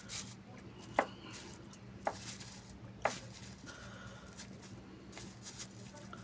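Eating by hand: fingers picking through rice and chicken on a plastic sheet, with faint rustling and three sharp clicks about a second apart in the first half.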